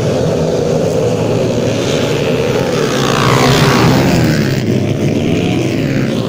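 Dirt flat-track race motorcycles running hard on a dirt oval. One bike comes close past about halfway through, its engine loudest as it passes and its pitch dropping as it goes by.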